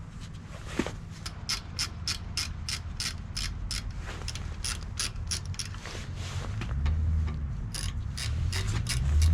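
Hand ratchet wrench clicking in quick runs of strokes, about four or five clicks a second, in three bursts with short pauses between. A low rumble swells near the end.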